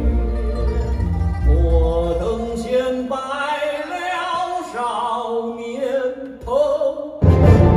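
Recorded vocal music played through a hi-fi loudspeaker system with stacked subwoofers: a singer holds long, sliding notes over deep bass. The music dips briefly about six and a half seconds in, then comes back loud.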